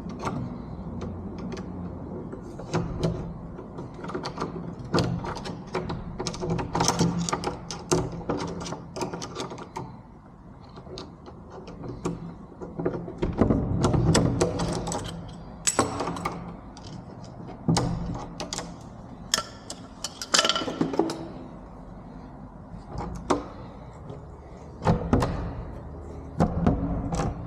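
Door lock and latch hardware being taken apart by hand: irregular metal clicks, taps and knocks, busiest about halfway through. The latch is a jammed, cheap one that would not pull back far enough.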